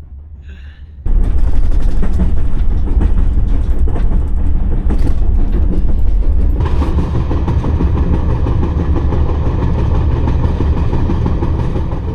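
Sleeper train running along the line: a loud, heavy rumble with the wheels clicking over the rails, starting abruptly about a second in.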